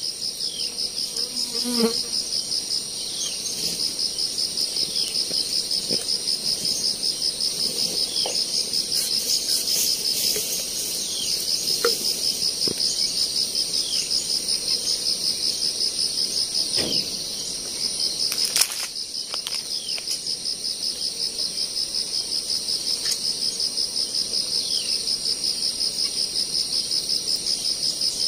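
Insects calling in a steady, fast-pulsing high chirr, with short falling whistles every second or two. A single sharp crack comes about 19 seconds in.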